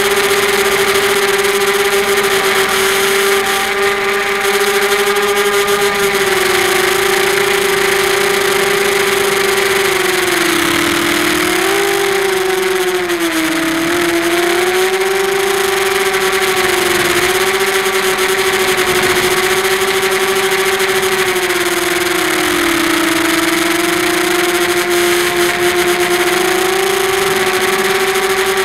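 Brushless motors and 5x4 propellers of a QAV250 racing quadcopter (Sunnysky 2300KV motors), heard close up from its onboard camera: a loud, steady high whine that dips in pitch and climbs back several times as the throttle changes in flight.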